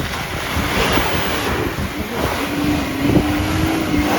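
Wind buffeting the microphone outdoors, with a vehicle's engine running underneath; a steady hum joins about two and a half seconds in.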